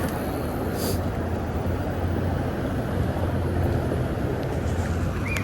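Steady rumble of street traffic and wind noise, with two quick high chirps near the end.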